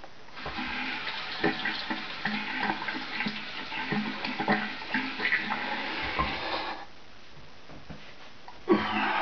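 Tap water running into a bathroom sink with splashing, as when rinsing the face or razor after a wet shave. The water stops about seven seconds in and starts again with a loud splash near the end.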